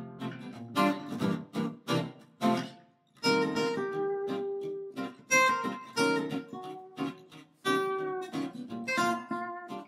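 Guitar intro music: a few quick strummed chords, then from about three seconds in a slower phrase of held, ringing notes and chords.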